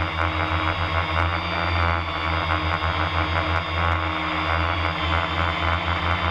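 FPV multirotor's motors and propellers droning steadily at a near-constant pitch, with a fast flutter, as it flies low.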